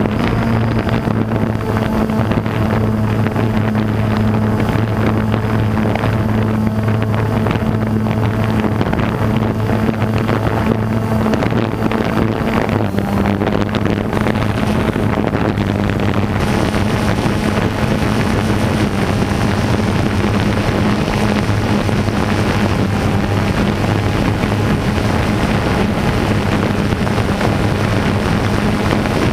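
Camera drone's motors and propellers humming steadily as it climbs, with a slight drop in pitch about halfway through; wind buffets the microphone.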